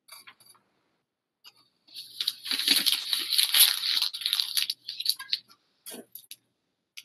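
A sheet of paper being handled and crinkled: a rustling, crackling burst of about three seconds in the middle, with a few short clicks before and after it.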